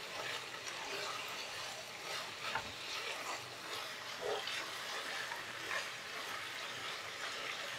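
A thick vegetable sabzi of potato, brinjal and cauliflower stalks sizzling softly in a pan over a high flame as its liquid cooks off. A few light scrapes of stirring come now and then.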